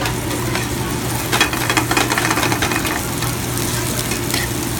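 Diced chicken pieces sizzling and crackling as they are laid into a hot oiled frying pan. The crackle is strongest from just over a second in to about three seconds. A steady low hum runs underneath.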